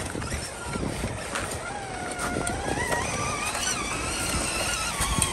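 Scale RC crawler's small electric motor and gears whining, the pitch slowly rising and falling as the throttle is worked.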